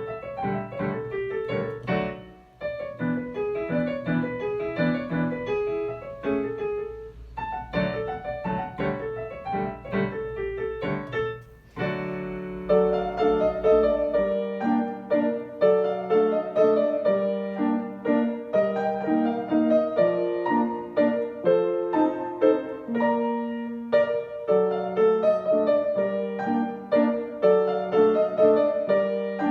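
Solo piano playing short classical dance pieces. About twelve seconds in, one recording gives way to another that is louder and more evenly patterned; the first has a faint low hum under it.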